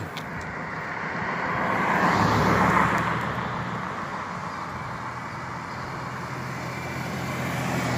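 A car passing on the road: tyre and engine noise swells to a peak about two and a half seconds in and fades away, then another vehicle starts to approach near the end.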